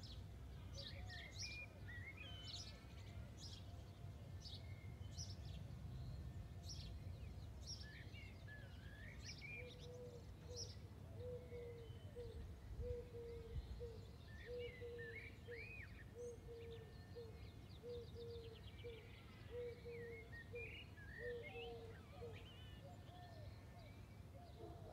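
Faint countryside ambience: many small birds chirping and trilling over a low steady rumble. From about ten seconds in, a low bird-like note repeats over and over, a little more than once a second, until near the end.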